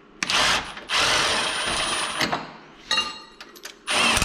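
Lower control arm bolt of a Yamaha YXZ 1000R's rear suspension being backed out with a tool: several bursts of mechanical noise, the longest running steadily for just over a second in the middle.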